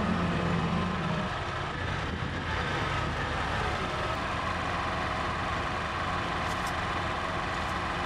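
David Brown Selectamatic tractor's engine running steadily as it carries a log on its front-end loader.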